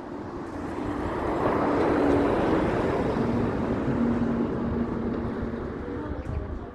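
A vehicle engine running, swelling to its loudest about two seconds in and then easing off, with a low hum that drops slightly in pitch.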